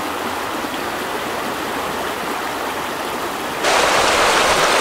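Shallow mountain stream rushing over rocks: a steady wash of running water that turns suddenly louder and brighter a little before the end.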